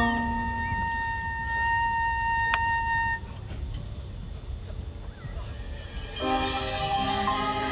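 Marching band music in a soft passage: a held high note sounds for about three seconds, with a single bright strike near its end. After a quiet gap, mallet percussion chords come in about six seconds in.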